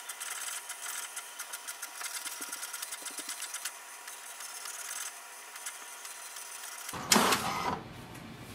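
HP DeskJet 4252e inkjet printer printing its alignment page: the print mechanism runs with rapid ticking, then more steadily, with a brief louder rush about seven seconds in as the page comes out.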